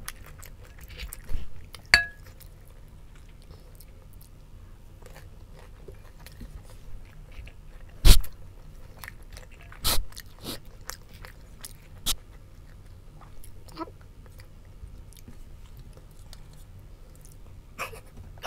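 Close-miked chewing and crunching of fried street food (fishballs, kwek kwek, chicken skin) eaten off bamboo skewers, with scattered sharp clicks, the loudest about eight and ten seconds in.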